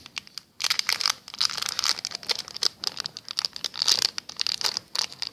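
Plastic wrapping crinkling and rustling as it is handled, a dense run of fine crackles starting about half a second in.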